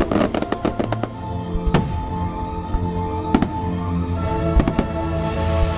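Fireworks exploding over music: a quick run of crackling bangs in the first second, then single bangs about every second or so.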